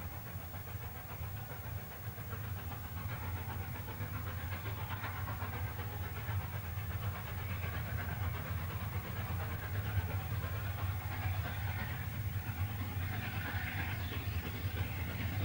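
A train running on the line, a steady low rumble that grows slowly louder.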